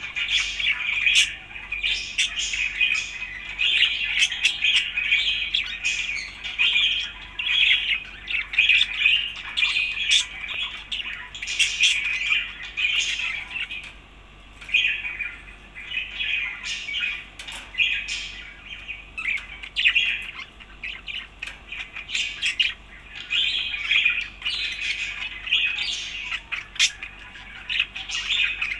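Budgerigar chattering and chirping in quick, continuous runs of short squawky notes, with a brief lull about halfway through.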